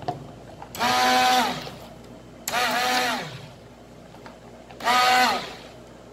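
Handheld immersion blender pulsed three times in a stainless steel bowl of thick cream, each burst under a second long. The motor whines up to speed and winds down each time.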